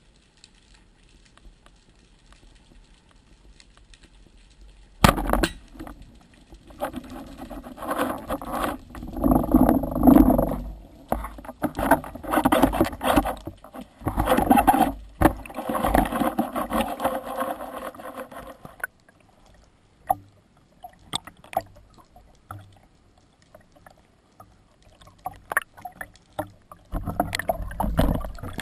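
Underwater recording: a sharp crack about five seconds in, the speargun firing, followed by about fourteen seconds of loud rushing and knocking water noise. Scattered clicks follow, and near the end rushing water returns as the diver nears the surface.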